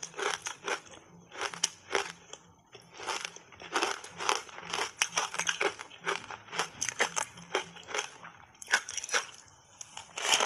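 Close-miked chewing of matcha-powdered ice: rapid, irregular crunching and cracking between the teeth, with a fresh bite into an ice piece near the end.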